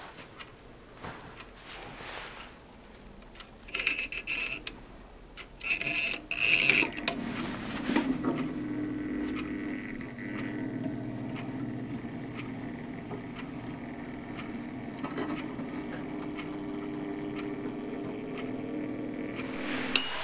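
Small geared motor of a homemade pet food feeder running steadily, turning the feed shutter with a steady hum and a rubbing, scraping noise. Two short rattling bursts come before the motor starts about eight seconds in. It runs until a click near the end, when the timer relay drops out and cuts the motor.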